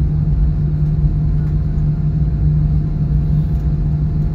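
Steady low rumble of an airliner cabin after landing: the jet engines and cabin air running as the plane taxis toward the gate, with a constant low hum.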